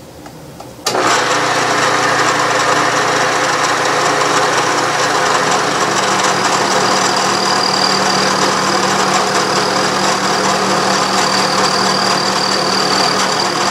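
Vertical milling machine spindle turning a 3/8-inch ball end mill at about 600 RPM, cutting a cove along the edge of a metal base on a conventional-milling pass. The steady running and cutting noise starts abruptly about a second in, and a thin high tone rides over it in the second half.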